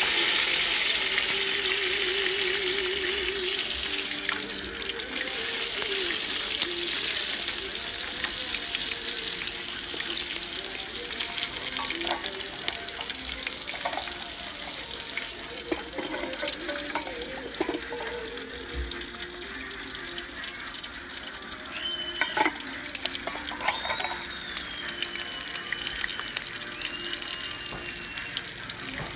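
Duck simmering in Coca-Cola in a steel pot: a steady bubbling hiss, loudest at first and slowly fading.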